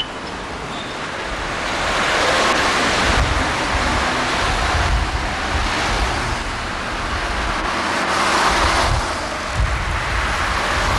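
Cars passing on a street: a steady noise of tyres and engines that swells twice, about two seconds in and again about eight seconds in, with low rumbling of wind on the microphone.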